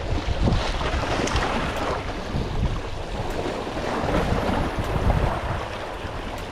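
Wind buffeting the microphone over the wash of waves and surf, an uneven rushing rumble that rises and falls.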